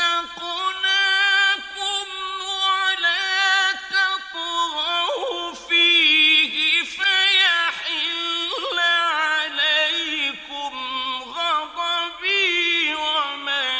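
Male Quran reciter chanting in the melodic mujawwad style, drawing out long held notes with wavering, ornamented melismas in several phrases.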